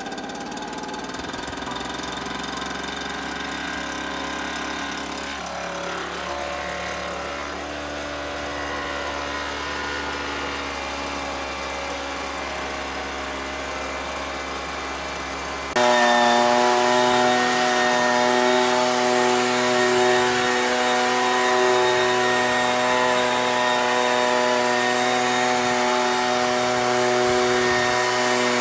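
Ryobi backpack leaf blower's small engine running steadily, lower and rougher in the first half, then abruptly louder at higher speed with a strong steady whine about halfway through.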